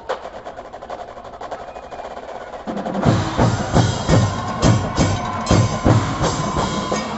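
Marching band percussion: a quiet, rapid clicking pattern, then about three seconds in the full battery with bass drums comes in loudly, playing a steady beat of about two to three hits a second under a sustained note.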